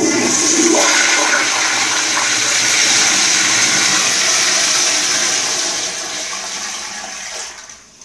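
Toto CT705 flushometer toilet flushing: a loud rush of water that starts suddenly, eases off after about six seconds and dies away near the end.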